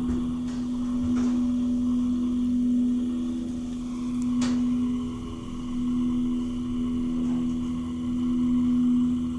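Hydraulic elevator pump motor running under load, a steady musical hum on one clear pitch as it lifts the car. A single sharp click comes about four and a half seconds in.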